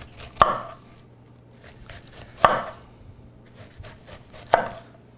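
Chef's knife cutting strips of skin off a whole pineapple, each downward cut through the rind ending in a sharp knock of the blade on a wooden cutting board, three times about two seconds apart.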